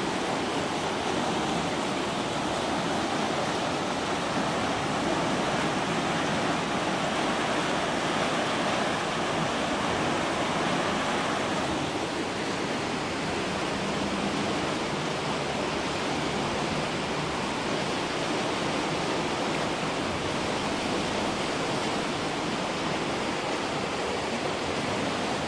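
Rushing floodwater in a creek, a steady loud roar of churning water.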